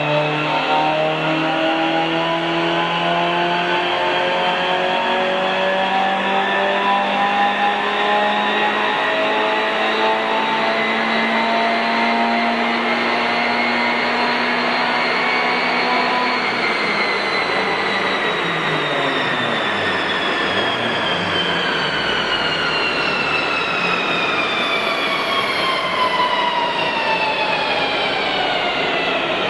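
A 1991 Honda CRX's 1.6-litre four-cylinder engine is pulling under load on a chassis dynamometer, its revs climbing slowly for about sixteen seconds in a dyno power run. The revs then fall away in a long descending whine as the car and rollers coast down.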